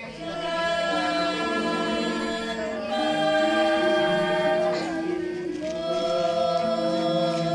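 A group of voices singing a slow Hindu devotional chant together, holding long notes that step from one pitch to the next.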